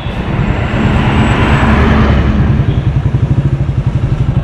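Motorcycle engine running under way, with fast, even pulsing and road noise; a hissing rush swells and fades in the first two seconds.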